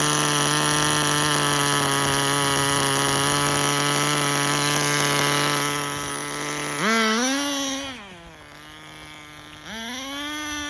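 Tamiya TGS-R's small nitro glow engine running at a steady high pitch, then about two-thirds in revved twice, the pitch rising and falling each time with a quieter idle between. The owner judges the mixture too rich, leaving the car slow.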